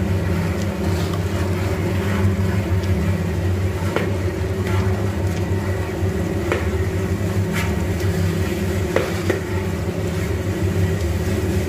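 Rotary chekku oil press grinding groundnuts for oil: a steady low hum of the turning pestle and drive, with scattered sharp clicks and knocks every second or so.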